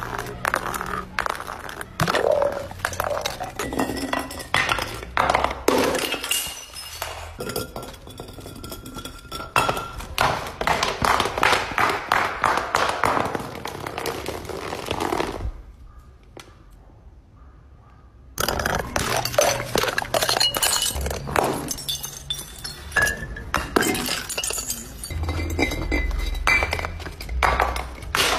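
Glass bottles smashing one after another on concrete, with sharp cracks and the clinking of glass shards scattering. A much quieter stretch of about three seconds falls just past the middle.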